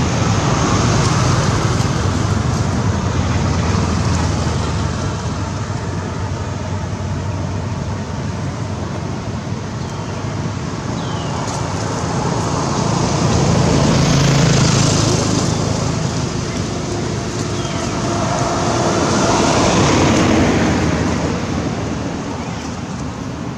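Road traffic passing, a steady rumble of vehicle noise that swells and fades as vehicles go by, loudest about midway and again near the end.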